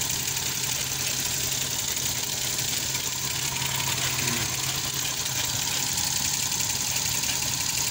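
Suzuki K6A three-cylinder petrol engine idling steadily with a light, quick ticking, which the mechanic puts down to the fuel injectors.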